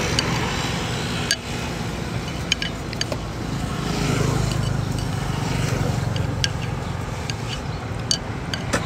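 Passing road traffic, a steady engine hum that swells about four seconds in as a vehicle goes by, with scattered small clicks and clinks of a spoon and chopsticks against a bowl.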